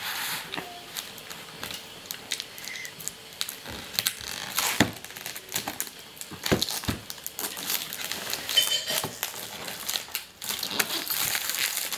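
The shrink-wrapped cardboard sleeve of a Play-Doh four-pack being handled and worked open by hand: irregular crinkling and crackling with many sharp clicks.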